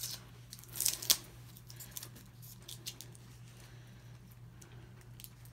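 Handling noises from working at the taped end of a mailing tube: a few sharp scrapes and clicks, the loudest about a second in, then smaller ticks.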